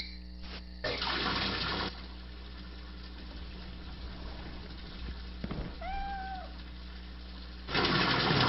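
Water running from a tap in two short gushes, about a second in and again near the end, over a low steady hum. About six seconds in comes one short pitched cry that rises and then falls.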